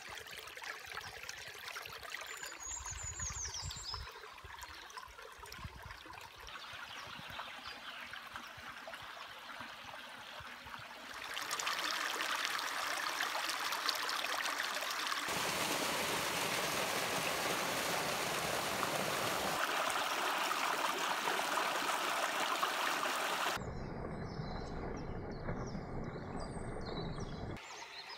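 Vydrica forest brook running and trickling over stones and logs in little cascades, a steady rush of water. The sound changes abruptly several times and is louder from about eleven seconds in. A brief high chirp comes about three seconds in.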